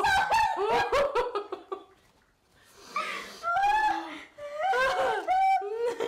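Two women laughing hysterically in high-pitched bursts. There is a pause about two seconds in and a short breathy gasp near the middle.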